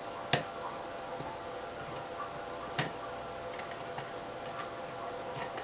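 LED strip and aluminium CCFL reflector being handled and pressed together by hand. There is a sharp click about a third of a second in and another near three seconds, with a few fainter ticks, over a faint steady hum.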